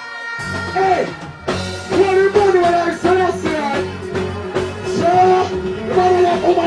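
Live reggae band with bass and keyboard backing a male vocalist singing through a microphone. The music cuts out for a moment at the start, then comes straight back in.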